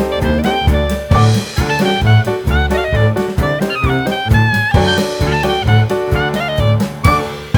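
Jazz background music with a moving melody over a steady beat.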